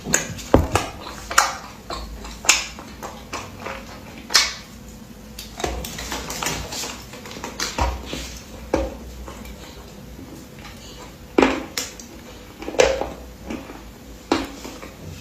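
Close-miked eating sounds: irregular sharp crunches and crackles of food being bitten and chewed, with a few louder snaps spread through.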